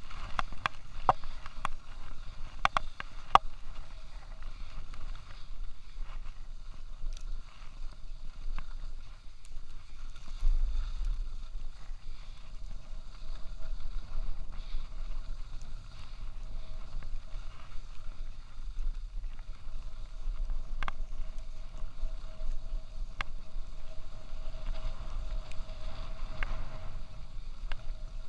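Skis sliding and scraping over groomed piste snow during a descent, a steady hiss, with wind rumbling on the chest-mounted camera's microphone. A cluster of sharp clicks in the first few seconds, and a few single clicks later.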